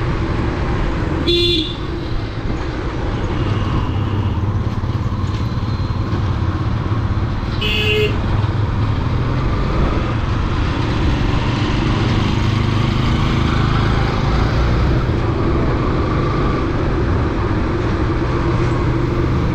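Motorcycle riding in town traffic: steady engine and road noise, with a vehicle horn beeping briefly twice, about a second and a half in and again about eight seconds in.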